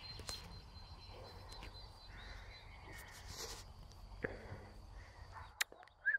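Quiet outdoor ambience: a low background hush with a faint, steady high-pitched tone and a few soft clicks.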